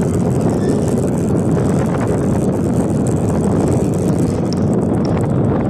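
Motorcycle riding at a steady speed: engine noise mixed with wind rushing over the microphone, steady throughout.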